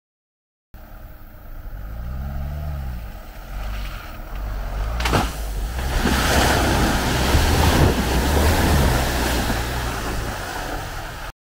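Land Rover Freelander 2's diesel engine revving up and down as it drives into a water splash, with a single knock about five seconds in. Then comes a loud, steady rush of splashing water and spray as it ploughs through, cut off suddenly near the end.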